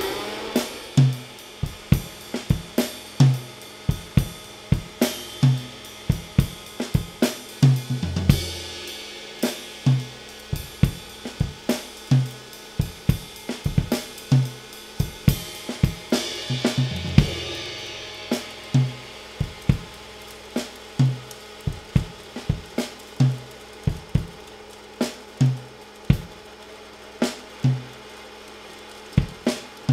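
Drum kit played to a steady beat: kick drum, snare, hi-hat and cymbals, with the cymbal wash swelling a couple of times.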